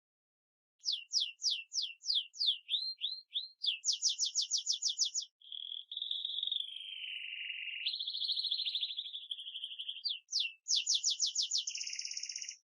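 A songbird singing a long, varied, high-pitched song. It is built of phrases of rapidly repeated whistled notes and fast trills, with a long buzzy rolling trill in the middle. The song starts about a second in and stops just before the end.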